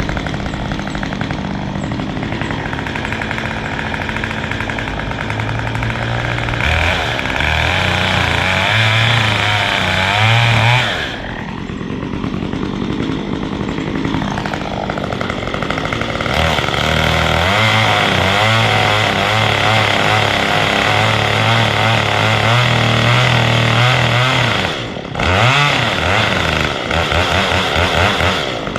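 Gas chainsaw running hard while cutting wood, its engine note changing under load. It drops back briefly about eleven seconds in and again near twenty-five seconds, then revs in short bursts near the end.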